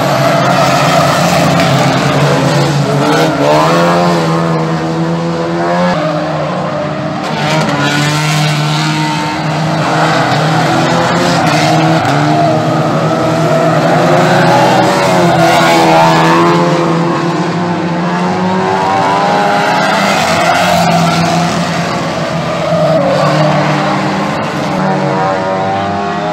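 Several banger racing cars lapping the oval together, their engines revving up and falling away over and over as they pass and corner, one over another in a loud continuous din.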